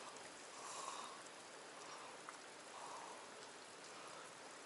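Faint outdoor ambience by still water: a soft, even hiss with two gentle swells, about a second in and again near three seconds.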